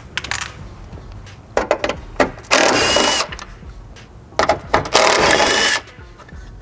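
A handheld power tool running in two short bursts, about two and a half seconds apart, each led in by a few clicks and knocks, while fasteners are worked on during disassembly of a car body.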